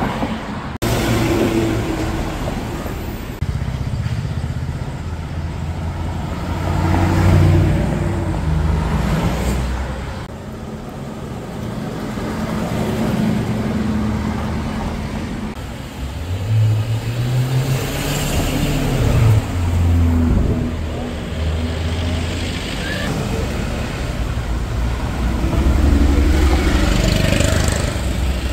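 Car engines running as cars drive past, the loudness swelling and fading several times. About sixteen seconds in, one engine's pitch rises as it revs up.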